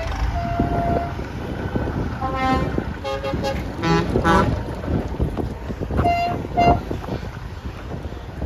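Vehicle horns sounding several times over the low rumble of engines driving past: a held note early on, chord-like blasts around the middle, and two short toots in quick succession later.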